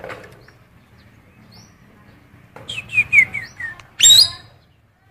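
Cucak keling songbird singing its mimicked female oriental magpie-robin calls: scattered short chirps, a quick run of about five falling whistled notes, then a loud harsh rising call about four seconds in.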